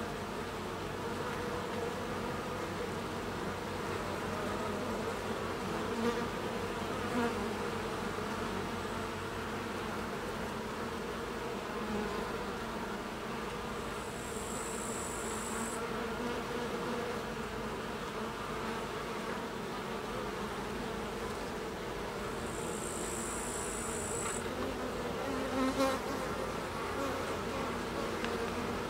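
Steady buzzing hum of many Carniolan honey bees flying in and out at the hive entrance, swelling briefly a few times as single bees pass close.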